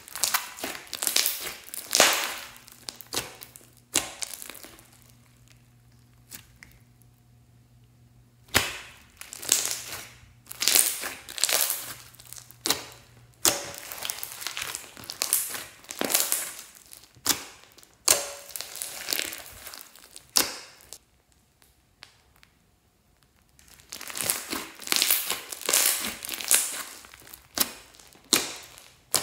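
Hands squishing, pressing and stretching a large lump of red slime: sticky crackling squelches in runs of quick bursts, pausing for a few seconds after the start and again a few seconds before the end.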